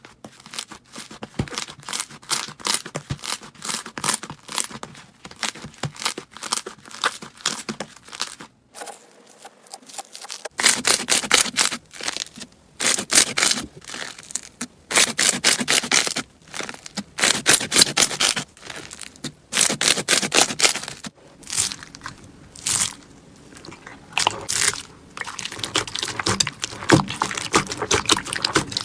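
Slime being squeezed and pressed by hand, giving dense crackling clicks and pops in repeated bursts, with a short lull about nine seconds in.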